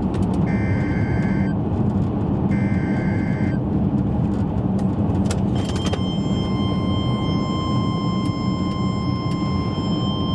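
NOAA Weather Radio alert over a vehicle's steady road noise. First come three one-second bursts of warbling digital alert-header data with short gaps between them. About six seconds in, the steady, high warning alarm tone begins, announcing a tornado warning.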